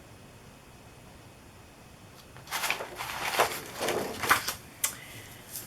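Stencil packages being handled, rustling and crinkling in a few irregular bursts from about two and a half seconds in, with a sharp click near the end of the handling.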